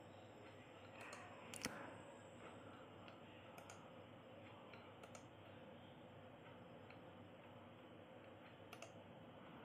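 A few faint, scattered computer mouse clicks over near-silent room hiss. The sharpest comes about a second and a half in.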